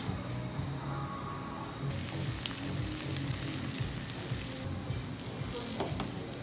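Fried rice sizzling and crackling in a hot pan. The sizzle starts about two seconds in and eases off before the end, over background music.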